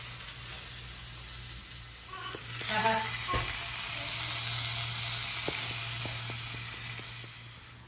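Nathan's hot dogs sizzling in a hot, seasoned cast iron skillet, frying in their own fat with no oil added. The sizzle swells a few seconds in and fades toward the end, with a few light clicks.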